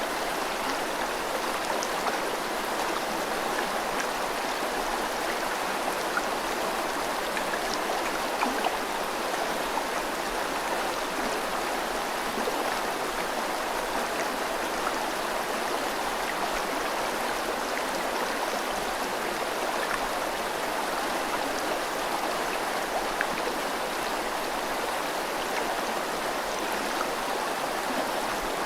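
A river flowing steadily, mixed with falling rain: an even, unbroken rushing of water with faint ticks of drops scattered through it.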